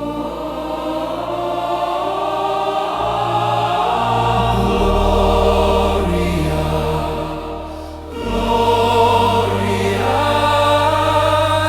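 Choral music: choir voices holding long sustained notes over deep held chords. The harmony shifts about five seconds in, and again just after a brief dip in loudness near eight seconds.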